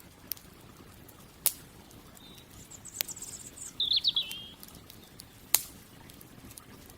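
Campfire crackling, with a few sharp pops, two of them loud, about a second and a half and five and a half seconds in. A songbird sings one short trilling phrase that drops in pitch partway through, about three to four seconds in.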